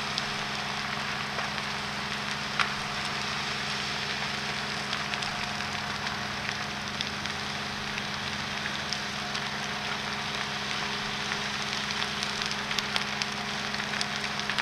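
Burning timber wreckage of a large building: a steady rushing crackle of flames with scattered sharp pops, one loud about two and a half seconds in and several more near the end, over a steady low hum.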